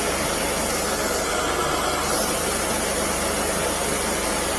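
High-pressure drain jetter running steadily, its engine-driven pump forcing water through the jetting hose with a constant hiss over a low engine hum.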